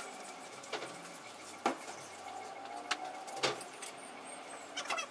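Boiling water poured into tapioca starch and rice flour in a stainless steel bowl, which is stirred with a wooden spatula, with about five scattered clicks and knocks against the bowl.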